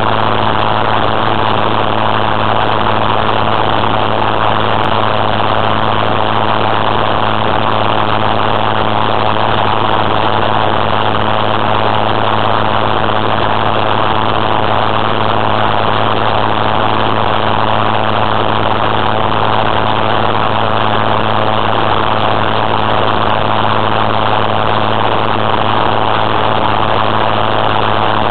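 Gyrocopter engine and propeller running steadily in flight, a constant low hum under a heavy rush of wind on the open-cockpit microphone.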